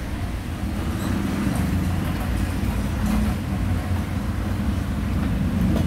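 Motor vehicle engine running steadily, a low rumble of street traffic.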